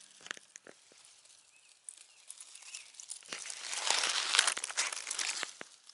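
Dry pine needles and dead leaves rustling and crackling, with a few faint ticks at first, then a denser crinkling that builds from about halfway through and dies away near the end.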